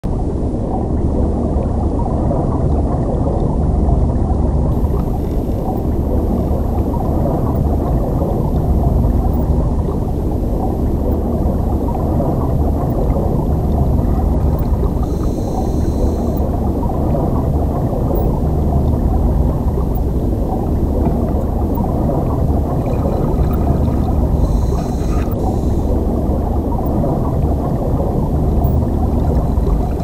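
Steady low rumble of river current heard from underwater, most of it deep and dull, with two brief faint higher hisses about halfway and about five seconds before the end.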